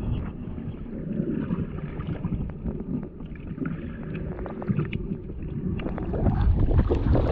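Underwater sound heard through a submerged camera: a muffled low rumble of moving water with scattered small clicks and crackles. It grows louder and brighter about six seconds in as the snorkeller swims up toward the surface.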